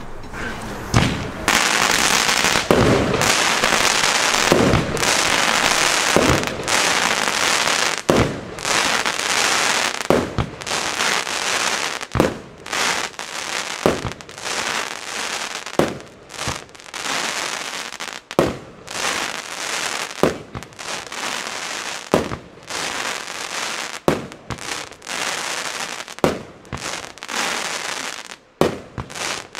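Firework battery, the Duplex-Cracker, firing shot after shot, about one every two seconds. Each shot bursts into crackling stars, so a dense crackle runs under the repeated bangs.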